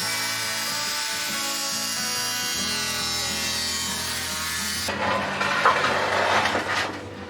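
Background music for about five seconds, then a hand tool working a piece of wooden window trim in a run of quick, uneven strokes, taking wood off so the trim fits against a wall that isn't straight.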